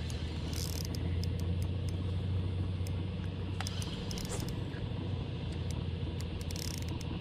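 Steady low hum of a boat motor running throughout.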